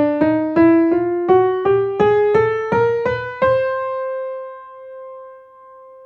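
Sampled acoustic piano (Ivy Audio's free Piano in 162 library) playing a rising scale of single notes, about three a second, climbing about an octave, then a held top note that rings and fades. The sound has the slightly untuned character of an unmaintained real piano.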